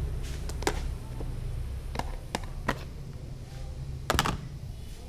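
Kitchen handling sounds: a scattering of light clicks and knocks, with a louder double knock about four seconds in, over a low steady rumble.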